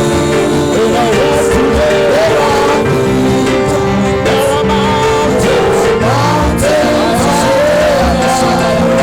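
Gospel worship song: a voice singing a wavering melody over held instrumental chords and a steady bass line.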